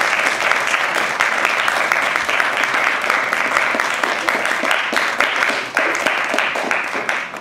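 Audience applauding steadily, with the clapping dying away near the end.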